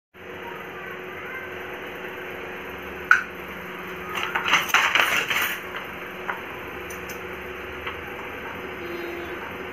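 Wooden handloom being worked: one sharp clack about three seconds in, then a run of clattering strokes lasting over a second, and a few light ticks after, over a steady background hum.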